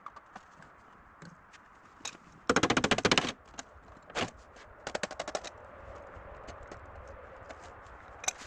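A tool working on bolts during disassembly: a loud burst of rapid clicking lasting under a second, a quieter second burst a couple of seconds later, and scattered single clicks and knocks of metal between them.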